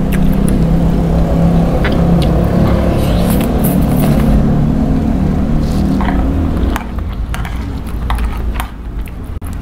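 Close-up eating sounds from a nearly empty plate of spicy instant noodles: a spoon and chopsticks click against the plate, and about three to four seconds in noodles are sucked off the spoon. A loud, steady low rumble lies under it all and drops away about seven seconds in.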